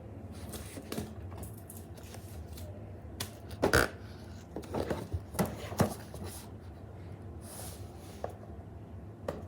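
Hands handling a toy's packaging: scattered rustles and clicks, the loudest about four seconds in and a few more between five and six seconds, with a soft brushing hiss near eight seconds.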